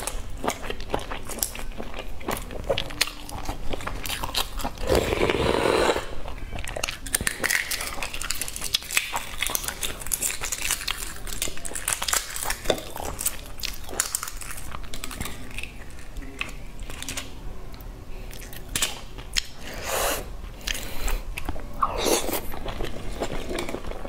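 Eggshells being cracked and peeled off eggs by hand: a dense, irregular run of small crackles and clicks as the shell breaks away, with a few louder crunchy stretches.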